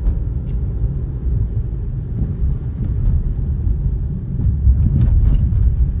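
Car driving on a snow-covered road, heard from inside the cabin: a steady, low rumble of tyre and road noise that grows a little louder near the end.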